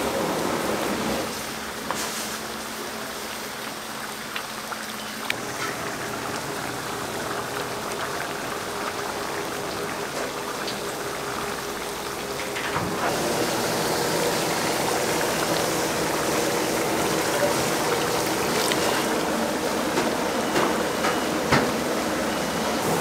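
Steady sizzling hiss of hot oil, typical of pork cutlets deep-frying, with a few light clicks and ticks. It drops about a second in and grows louder again about halfway through.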